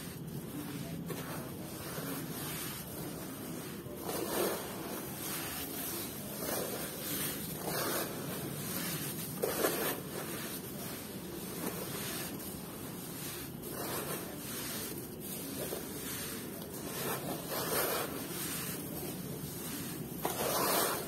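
Hands squeezing and crumbling damp red dirt in a plastic basin, the clumps falling back onto the pile. It comes in irregular louder swells every couple of seconds over a steady hiss.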